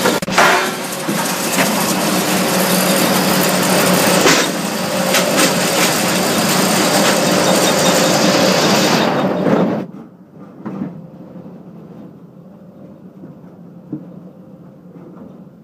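Cambio 45 ring debarker stripping bark from a log: a loud, dense noise with a few sharp knocks. About ten seconds in it cuts off suddenly, leaving the machine running far quieter with a few light knocks.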